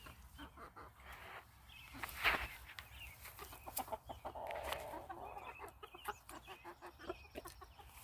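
Chicken clucking, with scattered short clicks and a brief noisy burst, the loudest sound, about two seconds in.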